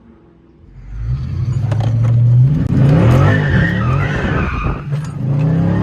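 Dodge Charger Scat Pack's 6.4-litre HEMI V8 pulling hard under full-throttle acceleration, about a second in. Its note climbs and drops several times as it runs up through the gears.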